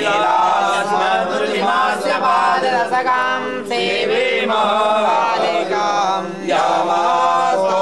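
A group of voices chanting a Hindu mantra together in long sung phrases, with short breaks between phrases about halfway through and near the end.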